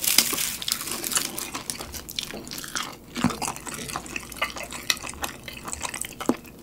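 A sheet of plain dried laver (gim) crackling and crinkling in the fingers as it is peeled off a stack and handled. The crackle is dense and brightest about the first second.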